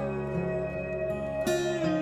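Background music: gentle plucked-string instrumental, acoustic guitar with notes sliding in pitch.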